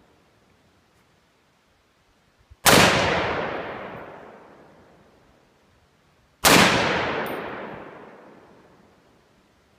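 Two shots from a Springfield Armory M1A semi-automatic rifle, about four seconds apart, each followed by a long echo that dies away over some three seconds.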